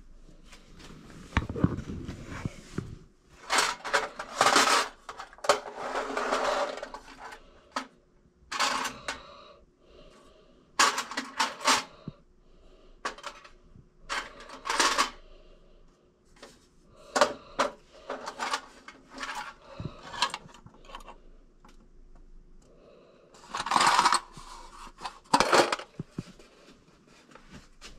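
Irregular clatters, clinks and rustles of small household items being handled, picked up and set down: ceramic and hard objects knocking and scraping, in a run of short bursts with quiet gaps between.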